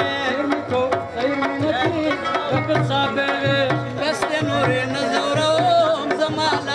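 Live Pashto folk music: reedy harmonium melody over a steady tabla-style hand-drum beat.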